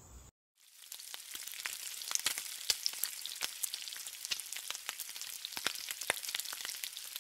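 Food frying on a flat-top griddle: a steady sizzle with many sharp popping crackles of spattering fat, starting about half a second in.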